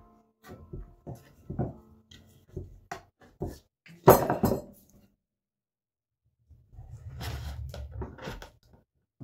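A small knife cutting and scraping birch bark on a birch log: a string of short scrapes and clicks, a louder burst about four seconds in, then a longer rough scraping near the end.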